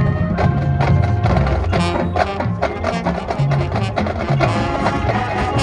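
High school marching band playing its competition show: sustained pitched chords over quick, regular percussion strikes.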